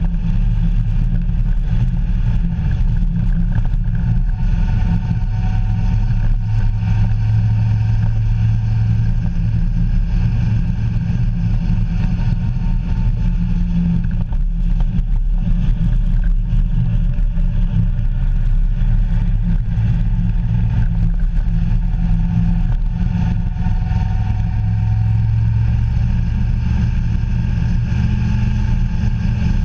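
A road vehicle driving along at steady speed: a low engine drone with tyre and wind noise, rising and falling slightly in pitch now and then.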